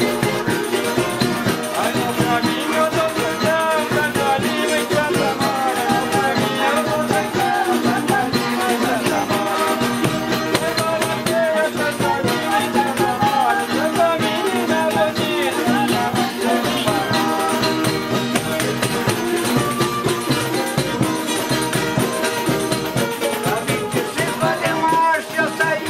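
Live acoustic folk dance music: a rabeca (folk fiddle) playing a wavering melody over violas (small steel-strung guitars) strummed in a quick, steady rhythm, in the style of the Caiçara fandango.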